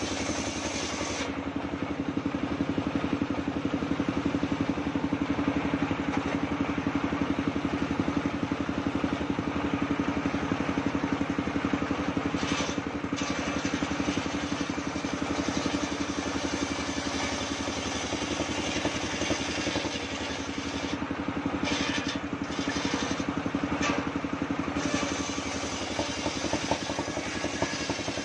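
Engine-driven circular sawmill running steadily, its large circular blade ripping a waru log lengthwise.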